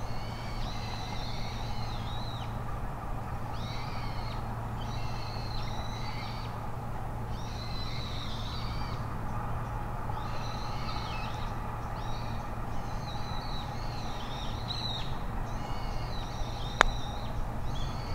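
Birds calling over and over in short chattering phrases above a steady low outdoor hum. Near the end comes a single sharp click: a putter striking a golf ball.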